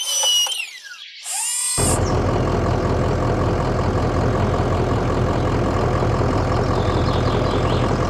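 A falling whistle-like glide and a short hiss, then from about two seconds in a steady engine drone with a constant low hum, the running sound of the tracked excavator.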